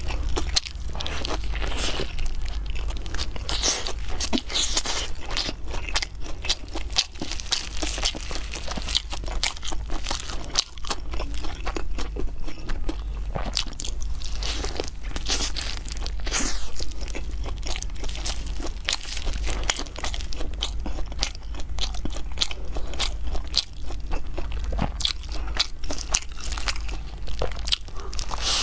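Close-miked eating of roasted chicken wings: the crisp skin crunches under bites, with continuous chewing and lip smacking, a dense run of small crackles and clicks.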